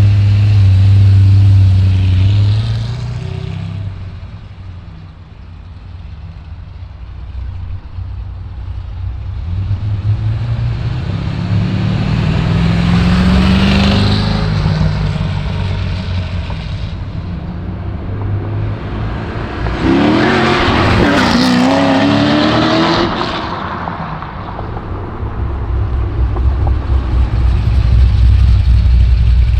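A 2008 Corvette C6 Z06's cammed 7.0-litre LS7 V8 with a choppy idle rumbles loudly, then is driven off. It builds and revs hard, loudest and rising in pitch about two-thirds of the way in, in a first-gear launch short-shifted into second with traction control on. A deep loud rumble returns near the end.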